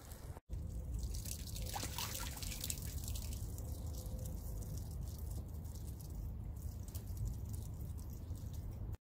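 Water gushing steadily out of the end of a blue lay-flat discharge hose onto brick paving, as a swimming pool is pumped down after rain raised its water level too high.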